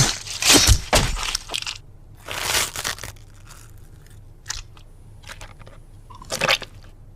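Harsh crunching and crackling noise: a rapid cluster of sharp cracks in the first two seconds, a longer rasping burst just after, then a few scattered short crackles and one more loud burst near the end.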